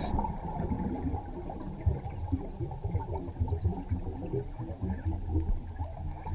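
Underwater noise from a diver's camera: a low, muffled rumble with irregular crackling of water.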